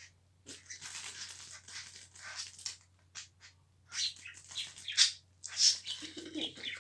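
Small pet bird making short, scratchy chirps among irregular rustling and scratching sounds.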